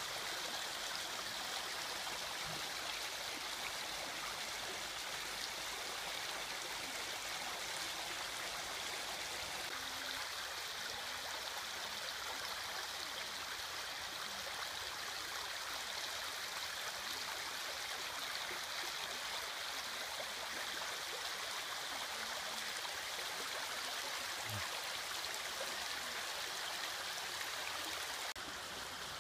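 Small brook running over rocks: a steady rushing and rippling of water that drops a little in level near the end.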